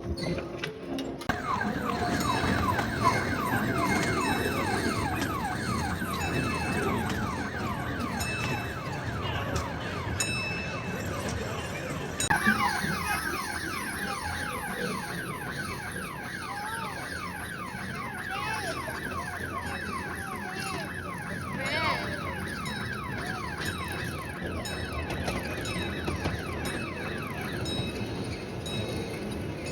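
An electronic siren-like alarm tone warbling quickly, several sweeps a second, over a steady background din.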